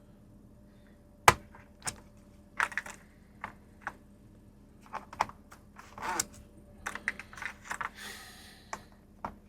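Metal sockets clinking and plastic socket clips clicking as sockets are handled and loaded onto twist-lock socket rails. The clicks come at irregular moments, the sharpest about a second in, with a short scraping rustle near the end.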